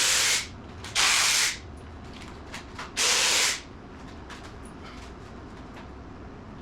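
Impact wrench run in three short bursts of about half a second each, backing out the 11 mm valve cover bolts on a Ford 302 V8.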